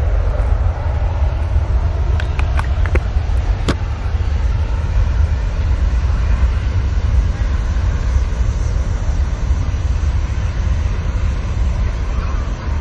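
Twin-engine jet airliner's engines giving a loud, steady, deep rumble as it rolls along the runway, with a few brief clicks about two to four seconds in.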